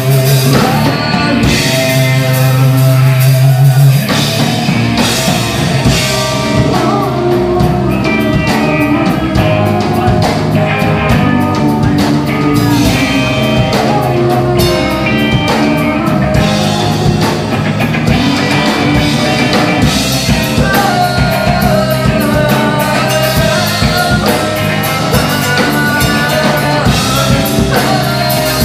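Rock song played back: guitars and a drum kit with a man singing. A held chord rings for the first few seconds, then the drums come in with a steady beat.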